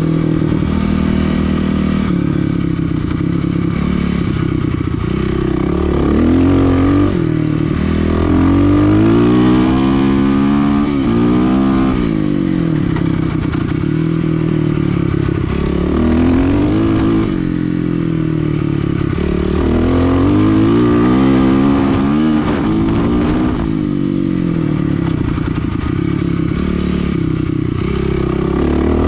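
Kawasaki KLX 300R dirt bike's single-cylinder four-stroke engine under way, its pitch repeatedly climbing and dropping back as the throttle is worked, with the longest rises about ten, sixteen and twenty-one seconds in.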